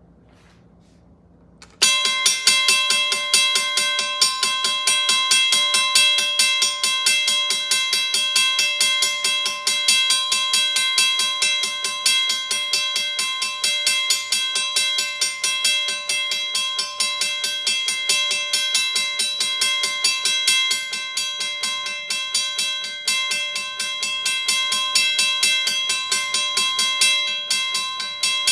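WCH mechanical bell starting up about two seconds in and ringing continuously, its hammer striking the gong in a rapid, even run of several strokes a second over a sustained ring.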